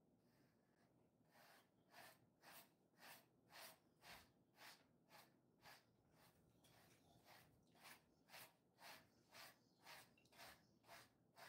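Faint swishes of a small grooming brush pulled through a Jindo-mix dog's coat in quick repeated strokes, about two a second, with a short pause about halfway.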